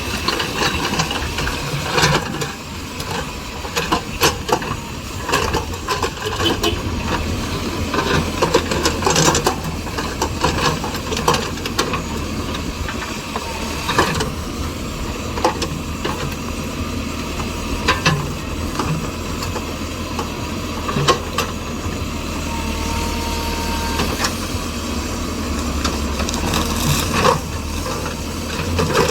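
Earth-moving tractor's engine running steadily while cutting a road, with irregular knocks and rattles of rock and metal.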